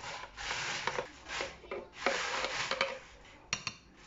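Thick banana-and-milk fruit smoothie being poured from a blender jug into a wine glass: soft, uneven rushing swells of the pour, then a few light clicks near the end.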